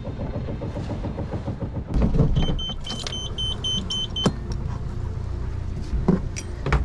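A sailboat's engine running with a low, steady rumble. About halfway through comes a rapid string of short, high electronic beeps, then a few sharp knocks.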